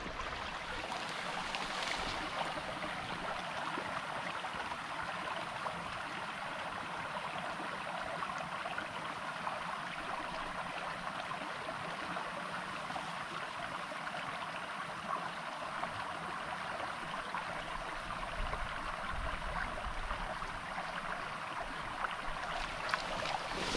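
A small stream running steadily, a constant even rush of water.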